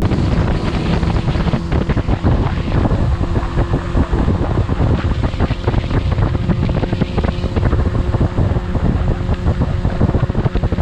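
Strong wind buffeting the microphone, a loud, rough rumble that does not let up, with a faint steady hum underneath.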